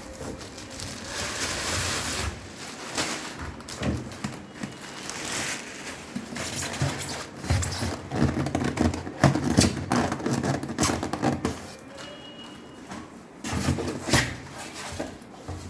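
Irregular knocks, scrapes and rustling of a new washing machine's packaging being handled and taken off, busiest in the middle of the stretch with a sharp knock near the end.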